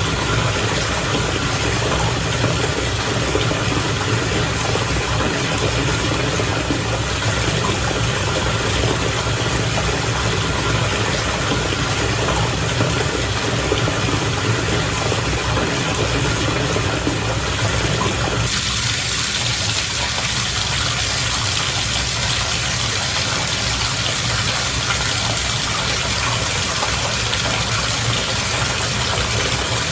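Bathwater bubbling and churning steadily over a constant low hum. About two-thirds of the way in the sound shifts: the deeper churning thins and the hiss grows brighter.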